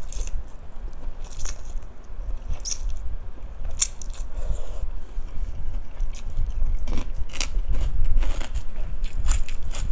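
Close-miked chewing of crunchy food, with irregular crisp crunches.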